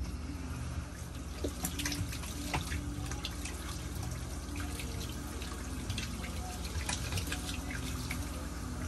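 Water running from a tap into a small caravan washbasin, splashing steadily as hands are washed under the stream.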